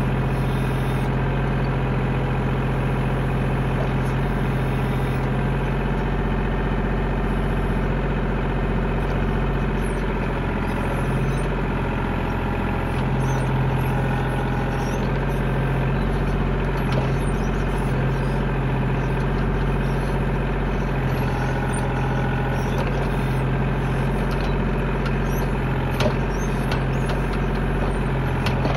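Tractor engine running at a steady speed, a continuous low drone, with one light knock near the end.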